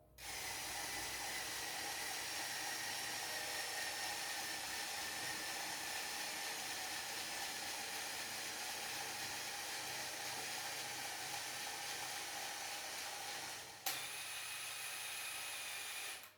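A small motor running steadily with a hissing whir and a faint whine. It starts abruptly, breaks off for a moment with a click near the end, resumes, then cuts off suddenly.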